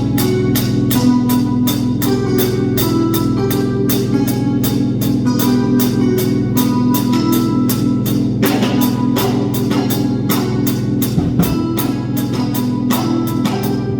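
Drum kit played along with an electronic dance-style backing track: sustained low synth tones and a repeating stepping melody under a steady, fast pulse of drum strikes.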